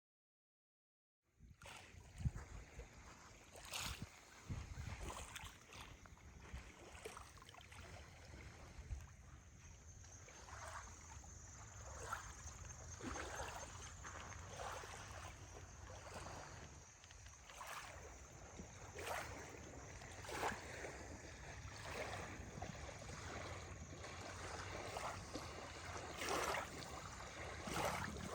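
Water lapping and splashing in irregular strokes over a low rumble, starting about a second in.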